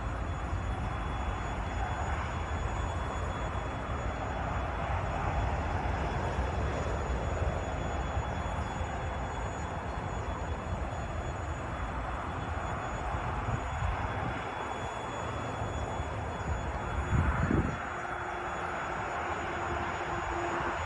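Train running past with a steady rolling rumble. A short low thump comes about 17 seconds in, and a steady hum begins just after it.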